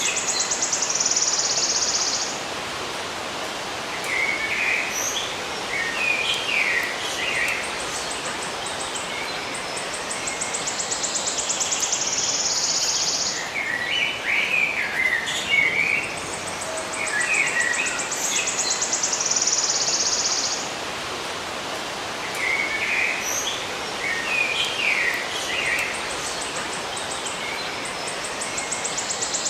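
Songbirds chirping in short clusters, while an insect trills in high, rapid pulses for a few seconds at a time, returning every thirteen seconds or so over a steady background hiss.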